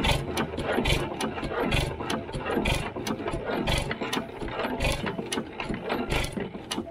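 1914 Fuller & Johnson 6 hp kerosene hit-and-miss engine running, freshly started: a quick, even clatter of clicks about three times a second with a heavier beat about once a second.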